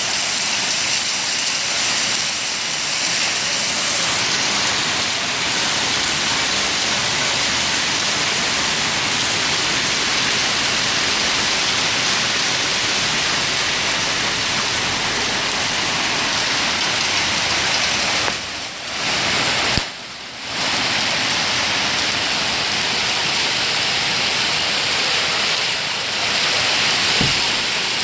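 Heavy rain pouring down steadily during a storm. The sound drops out briefly twice, about two-thirds of the way through.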